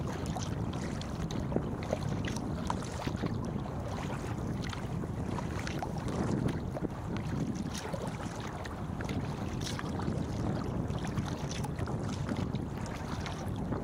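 Wind buffeting a microphone on a kayak's deck, over a steady low rumble, while the kayak is paddled through choppy water, with small splashes and drips from the paddle strokes scattered throughout.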